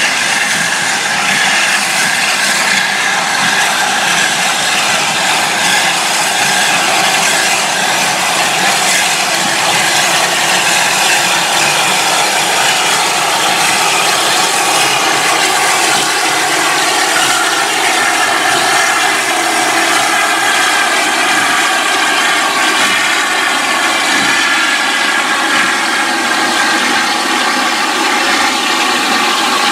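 Steam train running, a loud, steady rushing noise that holds without letting up.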